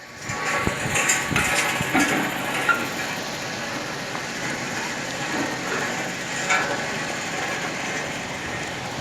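Electric overhead travelling (EOT) crane machinery running with a steady mechanical noise, with a few sharp knocks in the first three seconds and one more about six and a half seconds in.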